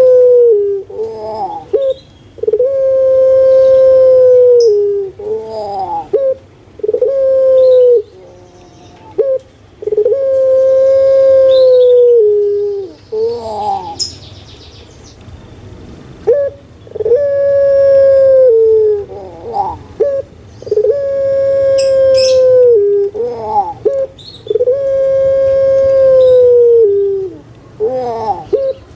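Caged ringneck dove (puter pelung, Streptopelia risoria) cooing over and over. Each call is a quick broken run of short rising-and-falling notes ending in a long, steady, drawn-out coo that drops at the very end, repeated about every four seconds.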